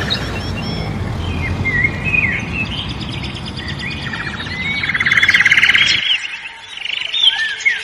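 Several small birds chirping and calling, with a dense buzzy trill about five seconds in. A low background noise under them cuts off about six seconds in.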